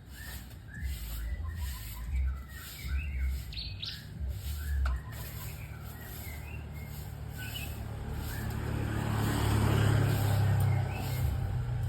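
White-rumped shama (murai batu) singing short chirping and whistled phrases, busiest in the first half. A low rumble like a passing vehicle swells in the second half and is loudest near the end.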